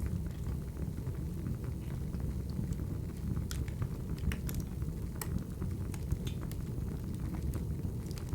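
Wood fire crackling: a steady low rumble with scattered sharp pops and snaps.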